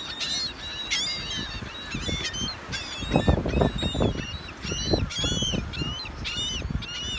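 A flock of gulls calling over and over, many short squawks overlapping, as they crowd around people with food. A low rumbling noise rises in the middle.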